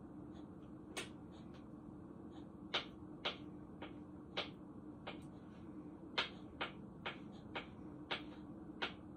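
Kitchen knife slicing a hard-boiled egg, the blade knocking on the cutting board in a string of sharp, irregular clicks: one about a second in, then roughly two a second from about three seconds in. A steady low hum runs underneath.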